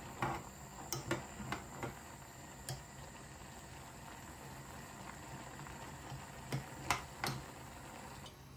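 Metal spoon clicking and scraping against a saucepan as bean seeds are stirred and lifted out of boiling water, over the steady sound of the boil. The clicks come in a cluster over the first two seconds and again near the end.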